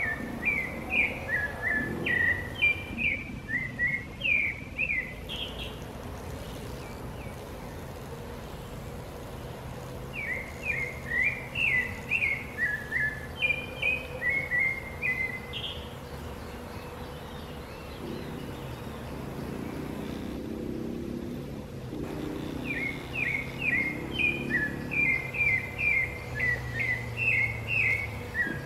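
A songbird singing in three bouts, each a rapid string of short, high, falling notes repeated several times a second. A low rumble rises under it from about two-thirds of the way in.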